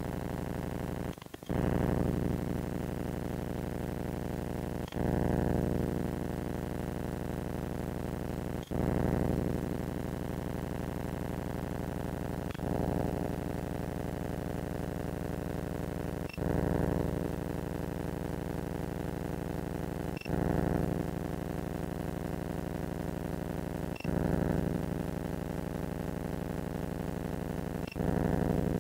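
Steady electronic hum from the recording binoculars' faulty audio, with a click and a brief swell about every four seconds. No owl call is captured.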